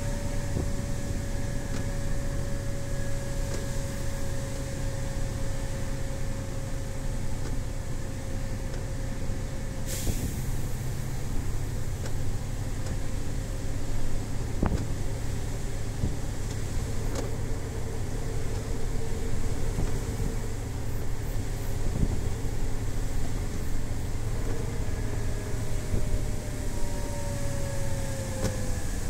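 A MAN TGS 18.400 truck's six-cylinder diesel running under way, heard from inside the cab as a steady low drone. A whine rides over it and slowly falls in pitch over the first ten seconds, then returns and falls again near the end; there is a sharp click about ten seconds in.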